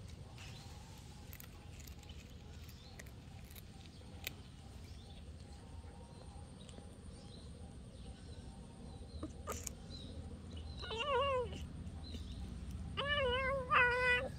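Young black-and-white cat meowing three times near the end while it eats: short calls with a wavering pitch, the last two back to back. Faint clicks sound earlier.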